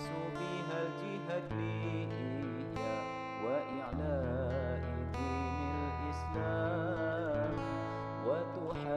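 Background music: strummed acoustic guitar over a bass line whose notes change every couple of seconds, with a wavering, sliding lead melody on top.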